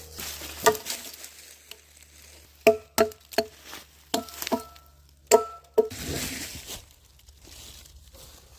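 Large saw blade knocking and clanking in three quick clusters of sharp metallic hits, each ringing briefly at the same pitch, followed by about a second of rustling.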